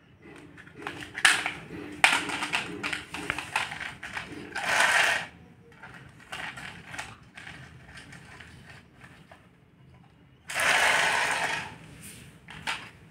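A hard plastic toy scooter and doll being handled and knocked about on a tile floor: a run of clicks and rattles, with two longer scraping noises about five seconds in and near eleven seconds.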